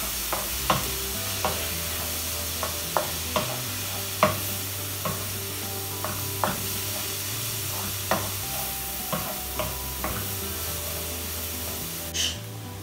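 Cauliflower fried rice sizzling in a hot non-stick wok while it is stirred and tossed with a wooden spatula, with irregular taps of the spatula against the pan.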